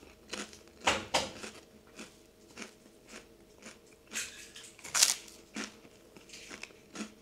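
Puffed rice cakes being bitten and chewed: crisp crunches of bites, the loudest about a second in and again around four to five seconds in, with quieter chewing crunches between.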